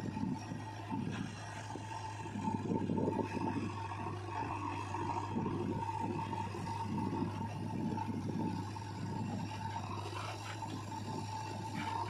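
JCB 3DX backhoe loader's diesel engine running under hydraulic load as the backhoe digs and swings, its note rising and falling in irregular surges over a steady low hum, with a steady high whine.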